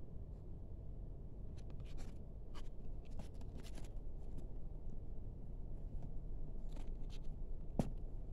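Hands handling a new faux-leather shoulder bag: light rustling of the stuffing inside and scattered small clicks and taps, with one sharper click near the end, over a steady low hum.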